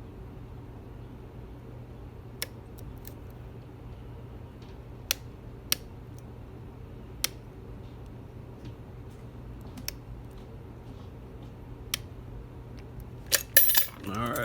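Lock picks working a Paclock 90A Pro padlock: sharp metallic clicks every few seconds over a steady low hum, then a brief cluster of louder metal clinks near the end.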